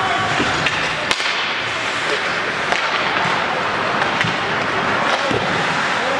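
Ice hockey play: a steady wash of skate blades and crowd noise, with scattered sharp clacks of sticks and puck.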